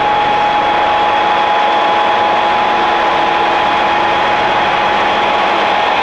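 Milling machine running with a boring head spinning on its spindle: a steady, even mechanical running noise with a constant high tone over it.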